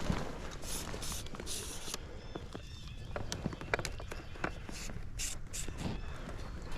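Footsteps and rustling through woodland leaf litter and brush, irregular steps with short clicks and brushing sounds.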